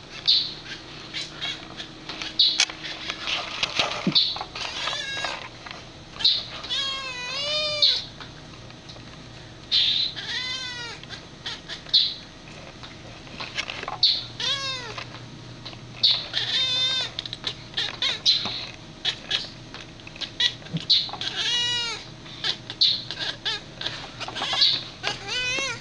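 Domestic cat chirping and trilling at a bird, the excited hunting chatter cats make at prey they can't reach. It comes in bursts of quick, squeaky, rising-and-falling meows every few seconds, with short high chirps in between.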